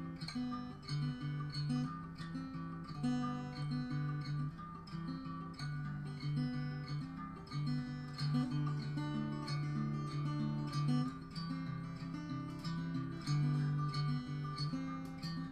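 Enya Nova Go carbon fiber acoustic guitar strummed in a steady rhythm, the chords changing every second or so.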